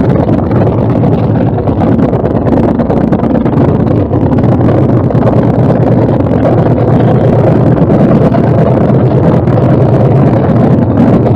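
Custom chopper motorcycle's engine idling steadily, a loud continuous low throb.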